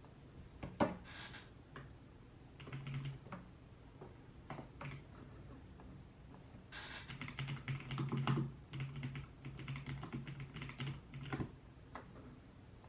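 Typing on a computer keyboard in short bursts of keystrokes, with a longer, quicker run of typing in the second half.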